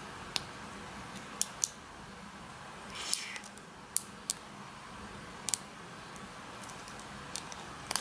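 Steel hook pick (a Peterson Gem) clicking and scraping against the pins inside a solid brass Vachette padlock's keyway under light tension, as the pins are probed one by one for a binding pin. About ten sharp separate clicks, with a brief scratchy rasp about three seconds in.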